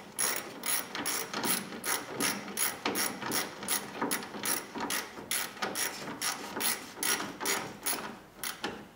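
Ratchet wrench clicking in a steady run, about two to three clicks a second, as a nut is run down onto a grille mounting stud.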